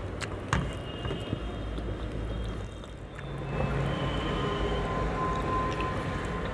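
Wet eating sounds of fingers mixing rice and chicken curry on a steel plate, with a few light clicks in the first second or so, over a steady low background hum. About halfway through the sound gets louder and a faint steady tone joins in the background.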